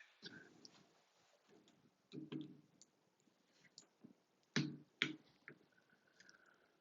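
Faint scattered clicks and taps of a Phillips screwdriver and small plastic faucet trim being handled, with two sharper clicks about four and a half and five seconds in.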